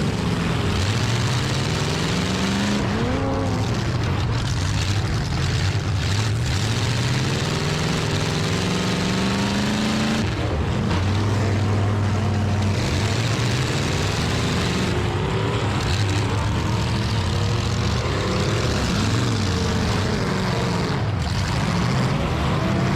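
Several demolition derby cars' engines running and revving hard at once. Their pitches repeatedly rise and fall over one another.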